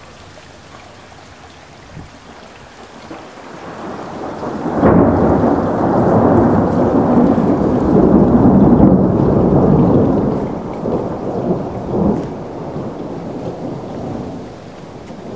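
A long peal of thunder: it builds for about two seconds, breaks into a loud crack about five seconds in, rolls on as a heavy rumble for about five seconds, swells once more, then dies away toward the end.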